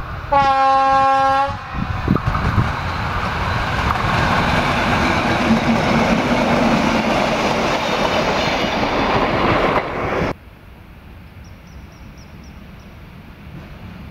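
A Class 113 electric locomotive sounds its horn once, a steady single note of about a second, then the train passes close by with a loud rising rush of wheels running on the rail. About ten seconds in it cuts off suddenly to a much quieter open-air background.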